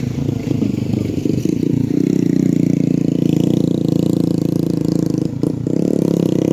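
A vehicle engine running steadily, with irregular knocks and rattles over the first two seconds and a brief drop in the sound a little past five seconds in.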